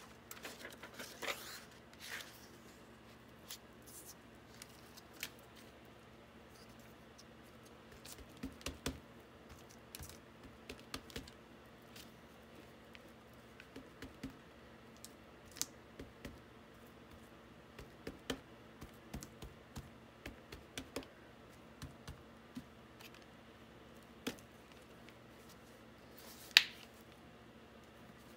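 Faint, scattered taps, clicks and light scrapes of hands working art materials on a tabletop: a rubber-band-wrapped printing block dabbed in black paint and pressed onto paper. One sharper click near the end.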